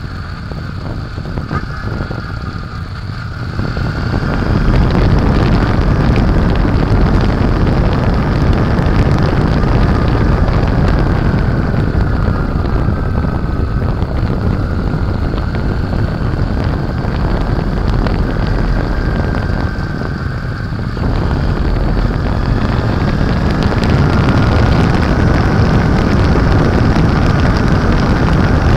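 Honda Shadow Aero 750's V-twin engine running at road speed under way, mixed with wind noise on the microphone. It gets louder about four seconds in, eases briefly around twenty seconds in, then picks up again.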